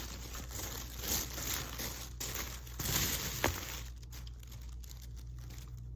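Wrapping paper crinkling and rustling as it is unwrapped by hand. The crackling is busy for the first half, then thins to scattered crackles.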